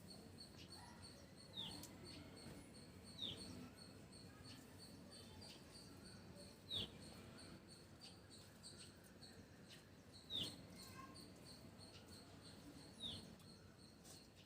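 Faint ambience: a bird gives a short, falling chirp five times, a few seconds apart, over a steady, high, rapidly pulsing buzz.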